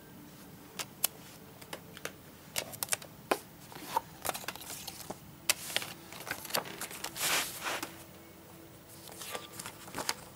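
Hard plastic clicks and taps from a multi-disc DVD case being handled, its clear disc trays flipped and knocked together, coming irregularly and several times a second. About seven seconds in there is a longer rustle, and after it the clicks are fewer and softer.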